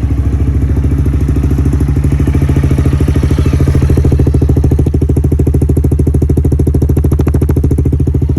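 Honda CG 160 Titan's single-cylinder engine idling steadily through a Coyote duplo aftermarket 'roncar' exhaust, a loud, fast, even pulse with no revving. The free-flowing exhaust makes it really loud, bawling ('berrando') right by the rider's ear.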